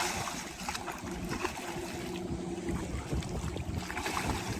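Wind buffeting the microphone over the low steady drone of a distant motorboat engine, with small rustles and clicks.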